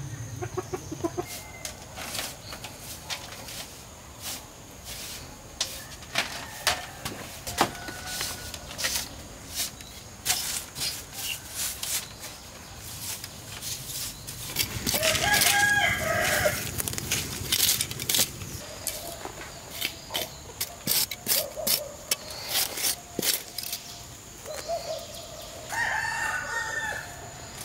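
Rooster crowing twice, each crow about two seconds long, amid frequent sharp clicks and knocks.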